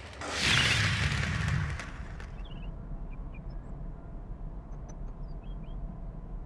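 Designed city soundscape: a loud rush of noise swells and dies away over about a second and a half, leaving a low steady rumble with faint short bird-like chirps and a few light ticks.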